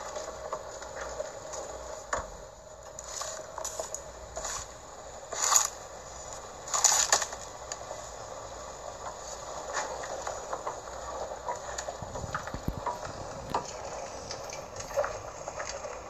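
A pot of vinegar brine with button mushrooms coming back to the boil on the stove, bubbling and crackling steadily. Two louder short noises come about five and a half and seven seconds in.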